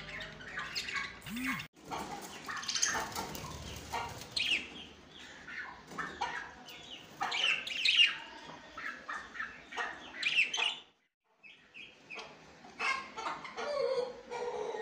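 Budgerigars chirping and chattering in quick, short calls, irregular throughout, cutting out for a moment about eleven seconds in.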